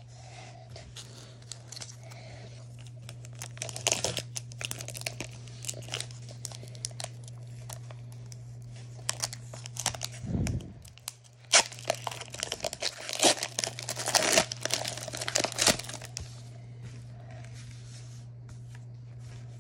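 Foil Pokémon card booster pack being torn open and crinkled in the hands, in bursts of tearing and rustling that are busiest in the second half, over a steady low hum.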